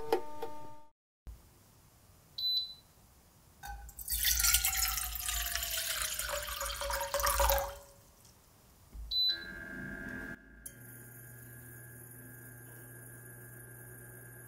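Water poured into a small enamel saucepan for about four seconds, with a ringing tone that falls in pitch as it pours. A short high beep comes a second or so after the pour, and then a steady low hum from the induction hob switching on.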